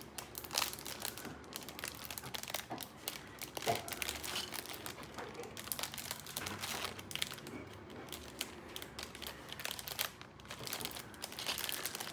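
Packaging of a Lego set crinkling and rustling as it is handled and opened, with a steady run of irregular crackles.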